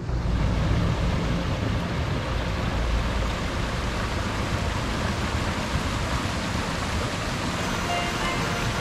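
Small woodland stream tumbling down a rocky cascade: a steady rush of falling water. Faint music comes back in near the end.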